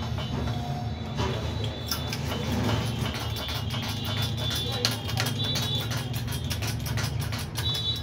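Scattered light metallic clicks and taps, uneven in timing, over a steady low hum.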